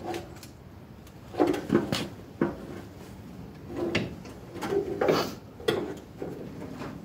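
Irregular short metal clanks and scrapes, about eight in all, as hitch parts and tools are worked by hand on the rear of an IH Cub Cadet garden tractor during a 3-point hitch installation.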